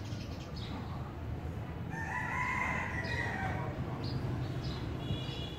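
A rooster crowing: one long call starting about two seconds in, over a steady low rumble, with short high bird chirps near the end.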